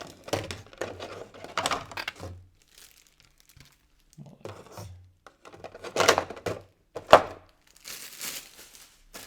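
Packaging crinkling and rustling in irregular bursts as parts are unwrapped and handled, with a sharper snap about seven seconds in.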